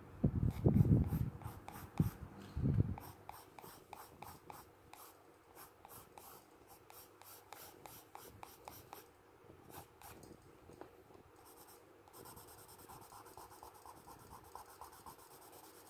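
Graphite pencil scratching across textured drawing paper in many short shading strokes. A few dull low thumps come in the first three seconds, and the strokes thin out into a faint steady hiss near the end.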